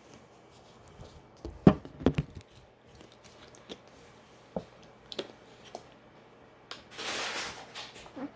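A few sharp knocks and clicks, the loudest about two seconds in, then scattered light taps and a short burst of hiss near the end.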